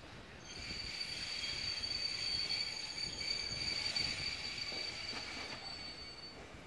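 Railway wheels squealing against the rails as the train moves along the curved track: a steady high-pitched squeal of several tones that starts about half a second in and stops near the end.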